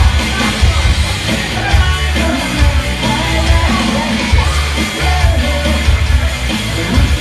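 Rock band playing loud with heavy drums and bass under shouted, sung vocals.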